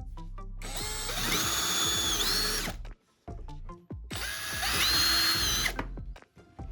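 Power drill running in two bursts of about two seconds each, its whine climbing in pitch as it spins up, over background music.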